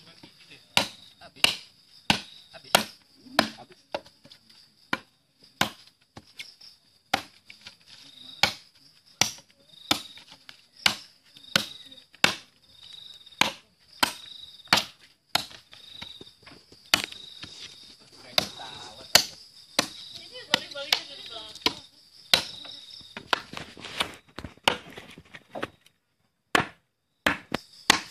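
A large 15-inch SUP9 spring-steel knife chopping repeatedly into a wooden plank, a sharp chop about every two-thirds of a second, stopping briefly near the end. Insects trill steadily in the background.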